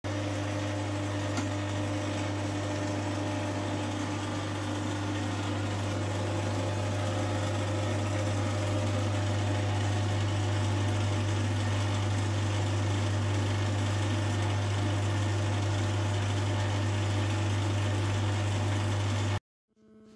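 Homemade flowing-gas CO2 laser running: a steady electrical hum and buzz from its oil-burner ignition transformer driving the high-voltage discharge in the tube. It cuts off suddenly near the end.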